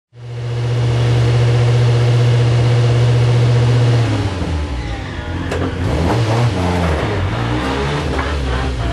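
VW Scirocco I 16V race car's four-cylinder engine running at a constant pitch, then from about four seconds in revving up and down as the throttle is blipped.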